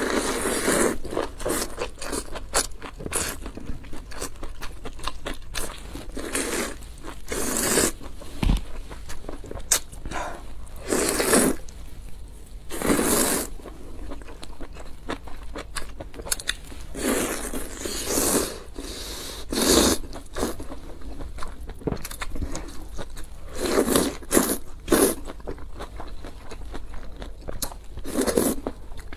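Close-miked noodle slurping and chewing. Loud slurps of half a second to a second come every few seconds, with quieter wet chewing between them.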